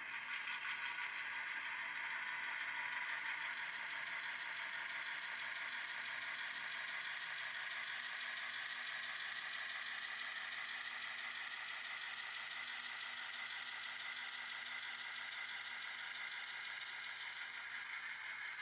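N scale model diesel locomotives, an Atlas GP39-2 and GP38-2 running as a pair, rolling along the track with a steady whir of their motors and gears and a fine rattle of wheels on rail. The sound eases a little as they move away.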